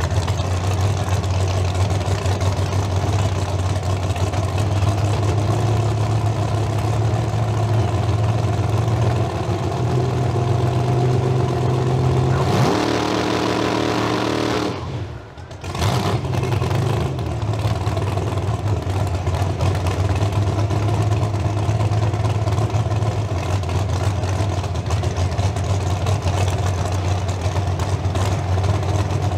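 Big-tire drag race car engines idling loudly and unevenly at the starting line. About twelve seconds in the revs climb briefly, the sound drops out for a moment, and then a steady lumpy idle returns.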